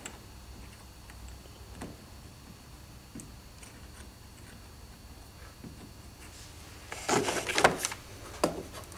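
Hands handling plaster rock castings: a few faint clicks, then about seven seconds in a short burst of scraping and rustling, followed by a single sharp knock.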